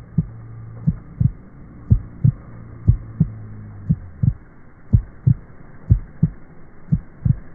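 Heartbeat sound effect: a steady double thump, lub-dub, about once a second, with a low hum underneath that fades out about halfway through.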